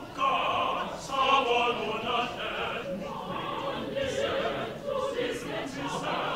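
Mixed choir of men and women singing together under a conductor, in phrases with short breaks between them.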